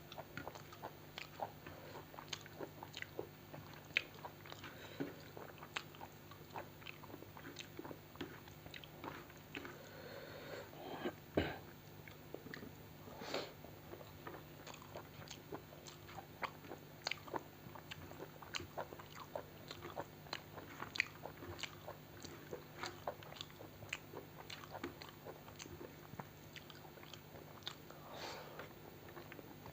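Close-miked eating: a person chewing and biting food, with many irregular wet mouth clicks and small crunches and one louder knock about eleven seconds in. A faint steady low hum sits underneath.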